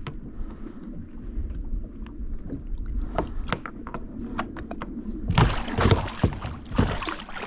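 Large pike thrashing at the surface beside a kayak as it is landed by hand, with loud splashing from about five seconds in. Before that, scattered light knocks and clicks.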